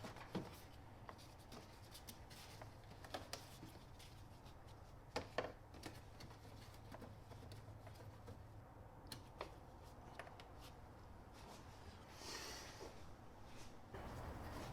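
Faint, scattered clicks and taps of hands working plastic clips and parts behind a car headlamp, with a brief rustle about twelve seconds in.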